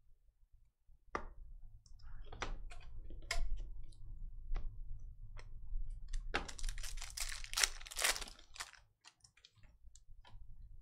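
Trading card pack wrapper being handled and torn open, crinkling, with scattered clicks and taps of cards being handled; the crinkling is densest a little past the middle.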